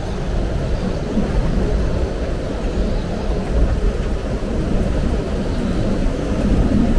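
Hurricane-force wind buffeting the microphone: a loud, steady low rumble that swells and eases with the gusts.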